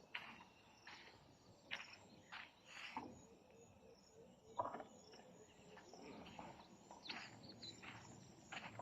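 Faint, irregular footsteps with insects, likely crickets, chirping steadily in the background.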